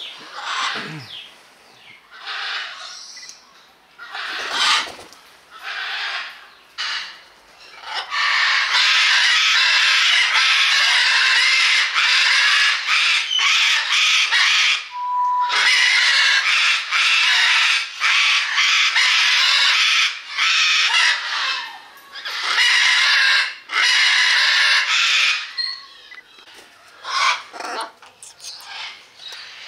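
Birds squawking harshly. Short scattered calls give way about eight seconds in to a loud, nearly continuous din that breaks off about twenty-five seconds in, followed by scattered calls again.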